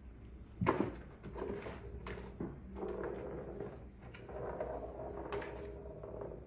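Plastic tray clattering and scraping on a tile floor as a cat rolls and bats about in it. A sharp clack comes about a second in, with more knocks around two and five seconds and stretches of rattling scraping between them.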